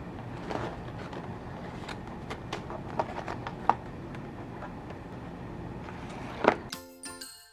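Steady background noise with scattered sharp clicks and knocks, the loudest near the end. It cuts off suddenly, and a tinkling music track takes over.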